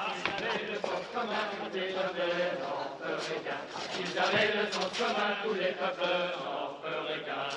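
A group of men's voices singing together, with long wavering notes.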